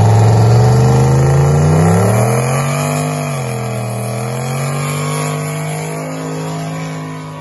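Lowered Chevrolet S-10 pickup's engine held at high revs through a smoky rear-tyre burnout. The engine note climbs, dips briefly about three seconds in, then holds and slowly fades.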